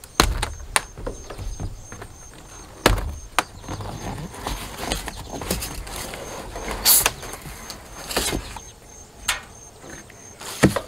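A large cardboard shipping box being opened and its packing handled: several sharp taps and knocks, with two short scraping rasps a little past the middle.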